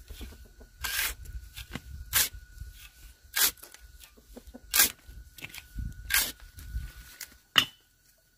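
Short scraping strokes, one about every second and a quarter, with a faint steady high tone behind them.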